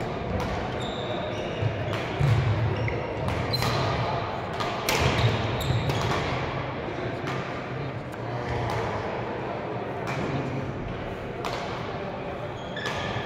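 Badminton rally: rackets strike the shuttlecock in a string of sharp, irregularly spaced hits. Shoes give short high squeaks on the court floor, over a steady murmur of voices in the hall.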